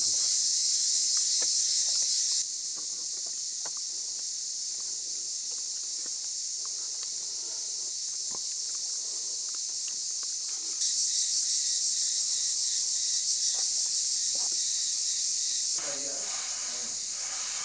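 Summer insects buzzing steadily in a high, shrill band, with a few light clinks of forks on plates. The buzz drops in level about two and a half seconds in and comes back louder around eleven seconds.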